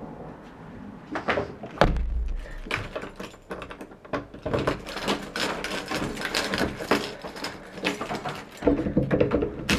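A run of short knocks, clicks and rattles, with a low thump about two seconds in, like objects being handled and set down.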